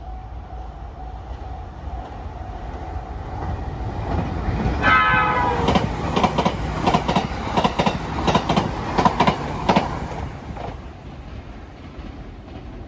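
JR Kyushu 787-series electric train passing close by, sounding a short blast on its electronic horn about five seconds in. Then comes the rhythmic clickety-clack of its wheels over the rail joints for about five seconds, fading as the train goes by.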